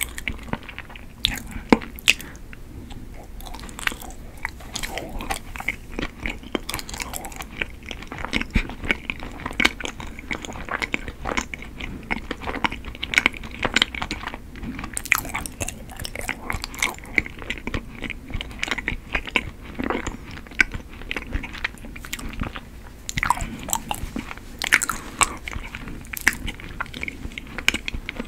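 Close-miked chewing of a chewy Korean rice cake (tteok), with many small, irregular clicks and smacks of the mouth.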